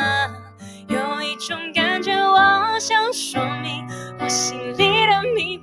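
A woman singing a slow ballad in a phrase-by-phrase melody, accompanied by piano chords.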